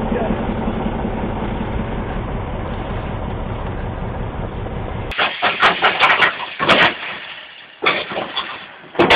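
A heavy machine's engine runs steadily. About five seconds in it gives way suddenly to uneven, loud bursts of noise.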